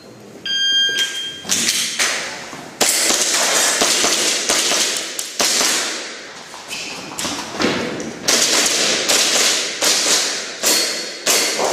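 A shot timer gives one start beep. Then a long string of airsoft pistol shots follows at an uneven pace, roughly one every half second, each with a sharp crack and a short echo.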